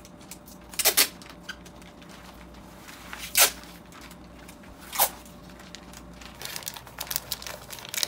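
Packing tape ripped off the roll in three loud rips, about one, three and a half and five seconds in, with light crinkling of plastic sheeting between them.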